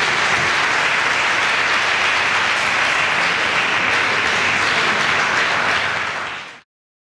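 Audience applauding, a dense, steady clapping that fades out and cuts to silence about six and a half seconds in.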